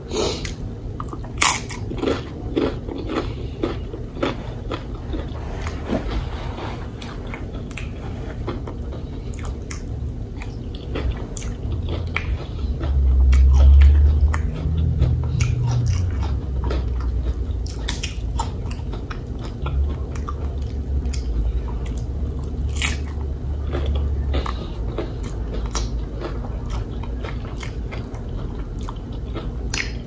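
Close-miked eating sounds: biting, crunching and chewing of loaded nachos, with many small wet clicks throughout. It grows louder and deeper about 13 to 15 seconds in.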